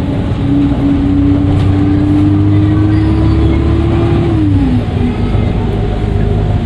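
Dennis Trident II double-decker bus under way, heard on board: the engine drones under a clear whine that climbs slowly in pitch for about four seconds as the bus pulls. Then the whine drops and the engine note eases, as when the driver lifts off or the gearbox changes up.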